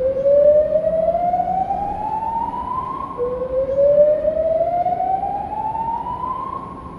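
Building fire alarm sounding its slow-whoop tone over the loudspeakers: two long rising sweeps, each climbing steadily in pitch for about three seconds. It is the early-alert signal of the building's fire alarm system, given while the cause of the alarm is being investigated.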